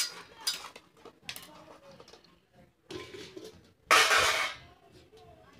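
Hands rubbing masala into fish pieces in a steel bowl: short scrapes and knocks against the steel, then one louder rushing scrape lasting about half a second, about four seconds in.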